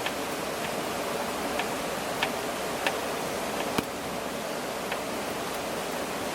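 Wood fire crackling: a steady hiss with irregular sharp pops and snaps, about seven in a few seconds.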